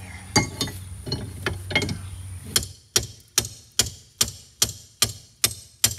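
A run of sharp, evenly spaced metallic clicks, a little over two a second, coming after a few irregular knocks, over a low steady hum.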